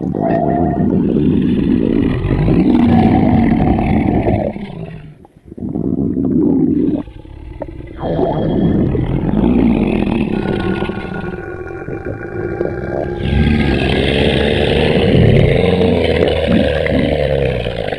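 Exaggerated stomach-rumble sound effect: loud, drawn-out roaring and growling. It breaks off briefly about five seconds in and dips again around seven seconds.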